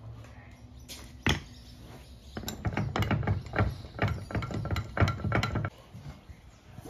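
A WAP 5100 Turbo pressure-washer pump head being set into a steel bench vise and clamped: one sharp knock about a second in, then a quick run of irregular metallic clinks and knocks for about three seconds as the vise is tightened.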